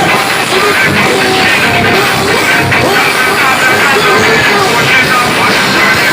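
Loud music played through a car trunk sound system.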